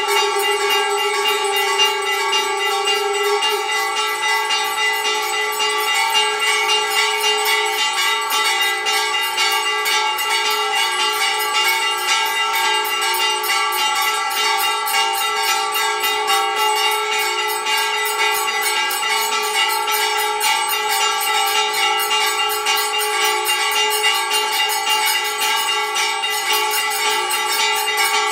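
Temple bells rung rapidly and without a break during aarti, the many fast strikes blending into one loud, steady ringing of several overlapping tones.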